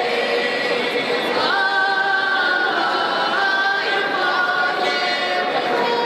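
Russian folk ensemble of women's voices and one man's voice singing a cappella in harmony, holding long notes that step up in pitch about a second and a half in.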